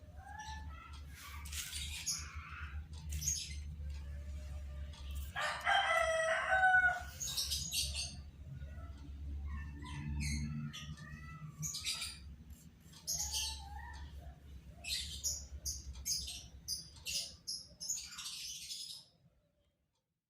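Small birds chirping again and again, with a rooster crowing once about six seconds in, over a low steady hum. The sound stops abruptly near the end.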